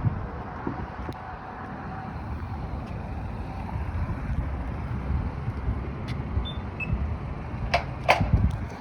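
Road traffic noise at a highway interchange: cars and trucks running past with a steady low rumble. A couple of sharp knocks come near the end.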